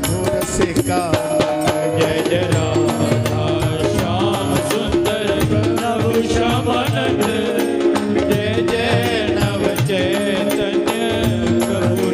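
Devotional kirtan music: drums and a steady clatter of hand percussion under held instrumental notes, with the chanting paused between verses.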